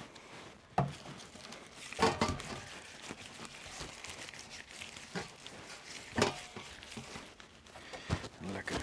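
Gloved, oily hands rubbing olive oil over a whole peeled pineapple in a stainless steel tray: soft wet rubbing and handling noise with several sharp knocks as the fruit and tray are moved.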